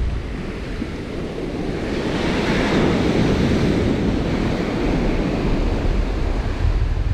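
Ocean surf breaking and washing up a sandy beach, swelling about two seconds in, with wind buffeting the microphone as a low rumble underneath.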